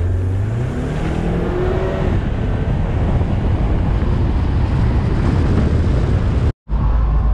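Car on the move: a steady, loud rumble of engine and road noise, heaviest in the low end, with a brief dropout near the end.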